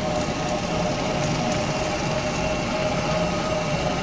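Steady machine hum with a constant whine and a few light clicks, from a suspension play tester working a Chevrolet Cobalt's front end to find a knock in its steering linkage.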